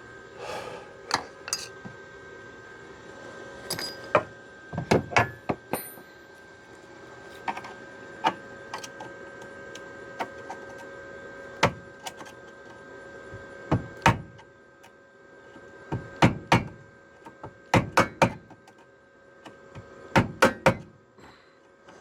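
Irregular metallic knocks and clanks, some in quick pairs, from tools working the sheet metal of a pickup's cab corner to free a section. A steady hum runs underneath.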